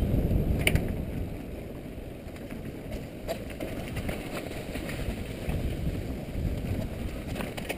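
Mountain bike descending a dirt downhill trail, heard from a helmet-mounted camera: a steady low rumble of wind on the microphone and tyres on dirt, with the bike rattling and a few sharp clicks.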